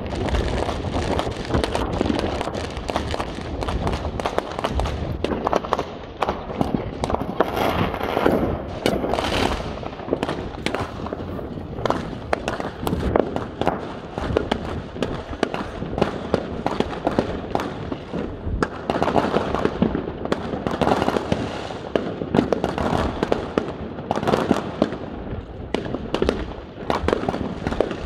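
Fireworks going off without a break: a dense run of overlapping bangs and crackles, with aerial shells bursting in the sky.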